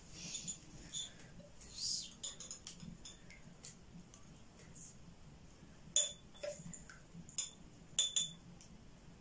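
Small sharp clinks of a jar and utensil against a steel saucepan as loose tea leaves are added to the water, several clinks in the second half.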